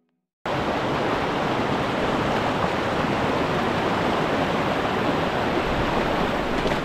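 Rushing creek water: a steady, loud rush that cuts in suddenly about half a second in.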